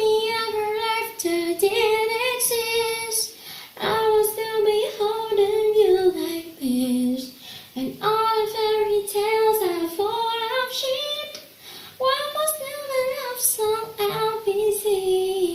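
A child singing alone: four long, sustained phrases of about three to four seconds each, with short breaths between them.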